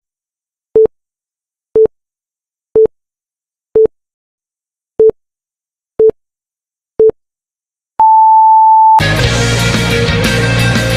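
Countdown timer beeps: seven short, low beeps about a second apart, then one longer, higher beep marking the end of the count. Rock intro music starts right after it.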